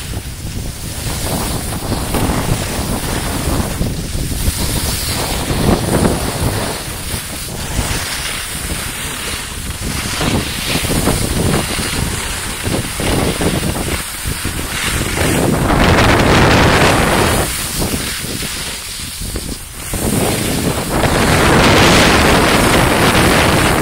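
Wind rushing over the microphone of a camera moving down a ski slope, mixed with the hiss of a board or skis scraping over packed snow. The rush swells louder twice in the last third.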